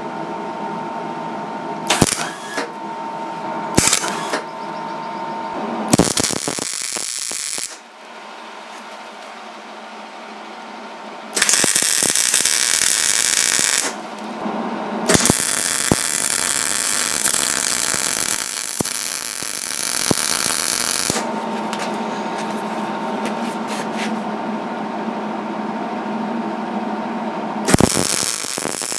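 MIG welder arc crackling as a bead is run around a steel hydraulic fitting welded into a cylinder port. First two brief blips about two seconds apart, then a longer one, then runs of steady sizzling crackle, the longest about six seconds, with a steady hum between runs.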